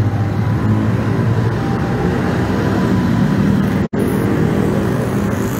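Busy city road traffic: cars and motorbikes running along the street in a steady mix. The sound cuts out for an instant about four seconds in.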